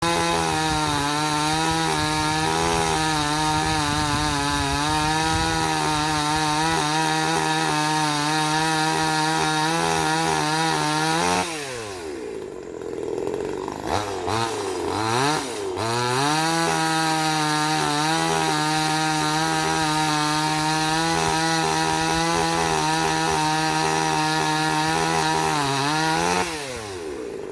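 Steel Power STP2503 chainsaw's 25.4 cc single-cylinder two-stroke engine held at high revs, dropping to idle about eleven seconds in, blipped twice, then opened up to high revs again for about ten seconds before falling back to idle near the end.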